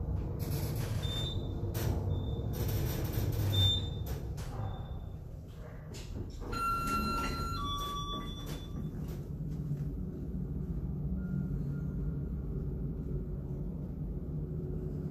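Elevator car running with a rumbling hum and a few short high beeps, then a two-note arrival chime, higher then lower, about six and a half seconds in as the sliding doors open.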